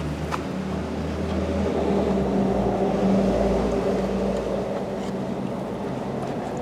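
Komatsu WB93 backhoe loader's diesel engine running steadily. Its note swells for a couple of seconds about midway, then settles.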